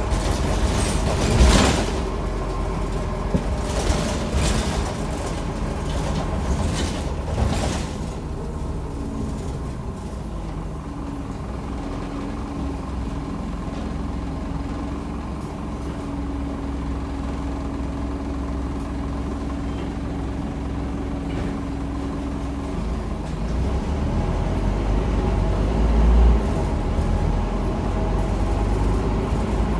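Inside a Scania OmniCity city bus in service: the engine runs with a low rumble under knocks and rattles of the body. A short loud burst of noise comes about a second and a half in. A steady hum runs through the middle, and the engine grows louder in the last quarter.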